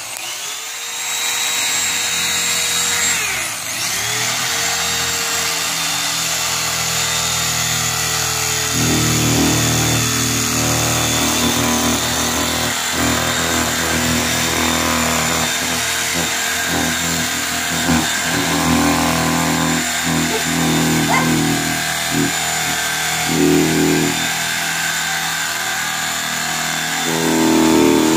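Corded handheld electric cutter running steadily as its blade cuts through a foam gun-case insert. Its motor whine sags briefly a few seconds in, then turns rougher and louder from about nine seconds as the blade works through the foam, with a further swell near the end.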